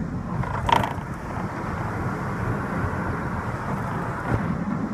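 Boat hull being dragged over grass behind a car: a steady rough scraping rumble, with a brief creak just under a second in and a small knock a little after four seconds.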